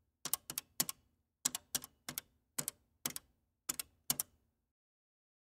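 A pay phone being dialed: about ten buttons pressed one after another at an uneven pace, each press a sharp double click, with no dial tones. The presses stop about four and a half seconds in.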